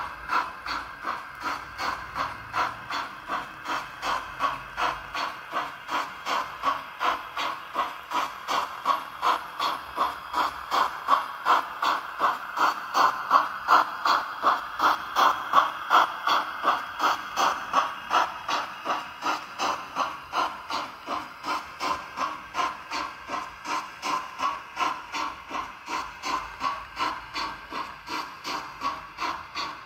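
Sound decoder of a Roco H0-scale BR 10 model steam locomotive playing steam-exhaust chuffs through its small onboard speaker, an even beat of about two to three chuffs a second. The chuffs grow louder as the locomotive passes, then ease off as the coaches follow.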